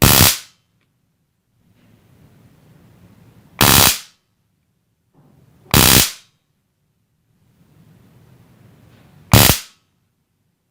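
Handheld electric stun gun (taser) zapping across its electrodes in four short bursts, each about half a second long, spaced unevenly a few seconds apart.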